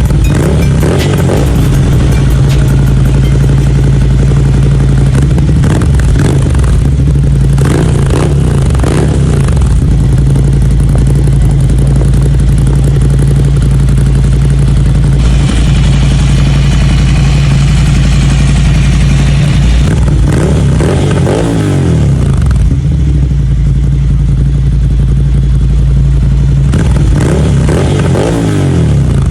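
Ducati Scrambler's L-twin engine idling through a Mivv aftermarket exhaust, blipped up and back down to idle several times.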